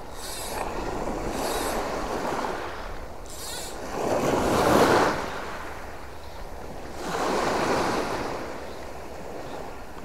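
Small sea waves breaking and washing up over the stony shore in three swells a few seconds apart, the loudest about halfway through.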